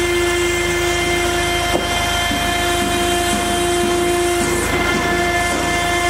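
Stone CNC router's spindle running with a steady whine, its cutter working a stone slab with a rough grinding noise underneath.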